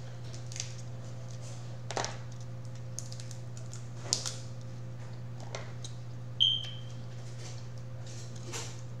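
Scattered sharp clicks and cracks of crab legs and shellfish being eaten by hand, over a steady low hum. A short high squeak comes about six and a half seconds in.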